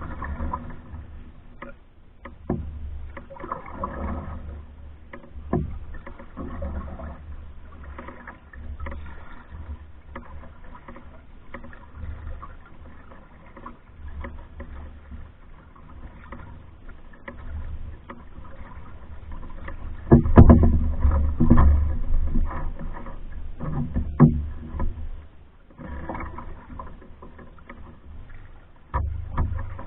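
Paddling a pack canoe: irregular splashes of the paddle in the water and small knocks on the hull over a low steady rumble, with a louder stretch of splashing about two-thirds of the way through.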